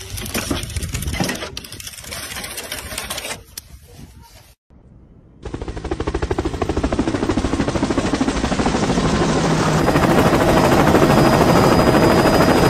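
Laptop keyboard typed on very fast: a dense, rapid clatter of keys that grows louder. It is preceded by a few seconds of irregular noise and a brief pause.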